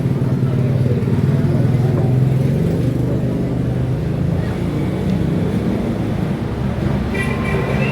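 A steady low engine-like drone, such as a motor vehicle running nearby, with a brief higher-pitched tone near the end.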